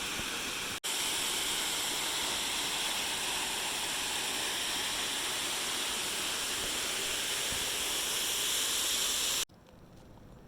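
Steady rushing of a waterfall. It breaks off for a moment just under a second in, then cuts off abruptly near the end, leaving a much quieter background.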